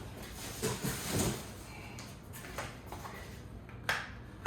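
Packaging being handled and cleared away: soft rustling with a few light knocks, a sharper knock near the end.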